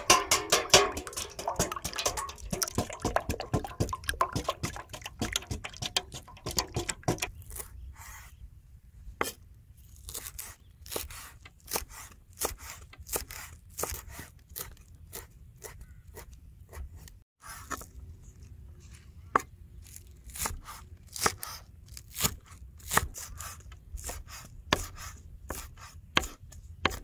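A cleaver chopping fresh cilantro and then green onions on a wooden cutting board: a long run of sharp, irregular knife strikes, a few a second. The first several seconds hold denser clatter and scraping of a ladle in a steel bowl of eggs.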